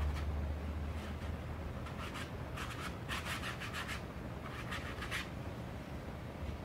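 Watercolour brush rubbing across paper in short runs of quick back-and-forth strokes, about two, three and five seconds in.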